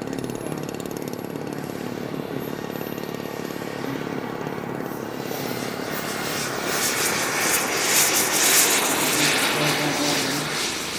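Scale model F9F Panther's small turbine jet engine at full power for take-off: a high whine rising in pitch over the first few seconds, then a loud jet rush that builds to a peak about eight seconds in and eases as the model lifts off. A steady lower engine hum runs beneath it.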